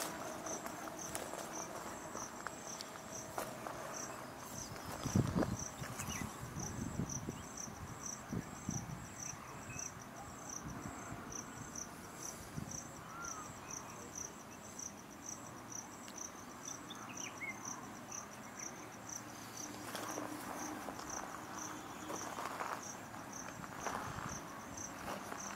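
An insect chirping in a steady, high, even pulse, about two chirps a second. A few low thumps and rustles come about five seconds in.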